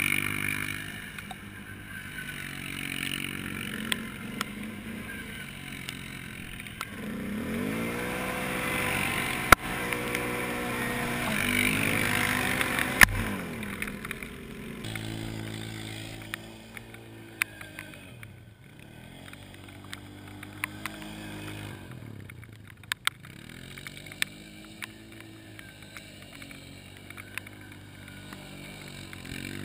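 Single-cylinder ATV engines. The near quad revs up and down in surges for the first half. It then runs steadily while a second quad revs in repeated rising and falling surges as it spins in the mud. Scattered sharp clicks are heard throughout.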